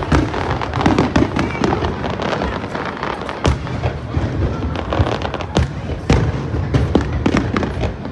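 Fireworks show going off in rapid, irregular succession: a dense run of bangs and crackles, with several sharper bangs standing out, about three and a half, five and a half and six seconds in.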